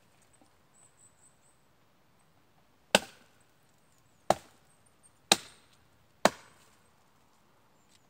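Axe chopping a branch laid across a fallen birch trunk: four sharp strikes of the blade into wood, the first about three seconds in and the rest about a second apart.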